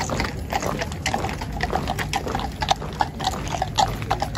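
Horseshoes clip-clopping on the road as a mounted police horse walks past, a run of sharp, uneven knocks several times a second.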